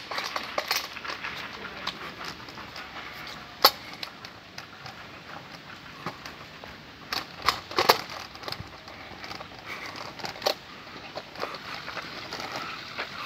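Scattered sharp clicks and knocks over a low steady hiss, the loudest about four seconds in and a few more close together around eight seconds.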